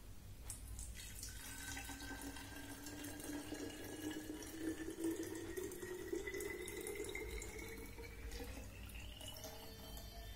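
Water poured from a steel mug into a narrow plastic bottle, filling it to about 300 ml. The pitch of the pour rises steadily as the bottle fills, and the pour stops near the end.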